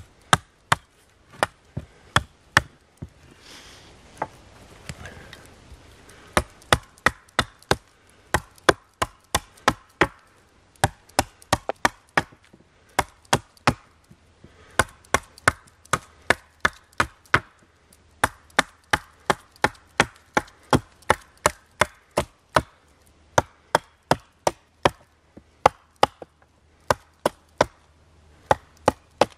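Small hatchet chopping a thin birch stem: dozens of sharp blows, about two a second, in runs with brief pauses.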